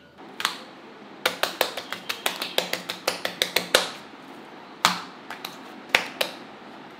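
Hand slapping and patting a soft lump of slime on a countertop: a quick run of sharp wet slaps, about five a second, then a handful of scattered slaps.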